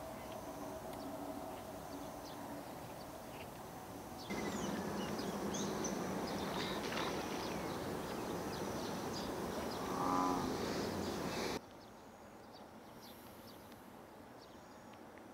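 Quiet outdoor ambience at a reservoir with faint, short high chirps, cut abruptly twice so the background steps up and then down. About ten seconds in, a single low moo-like animal call lasting under a second.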